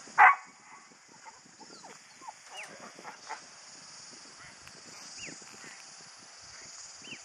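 A working dog barks once, sharply, near the start as it works a mob of cattle, over a steady high hiss with scattered short bird chirps.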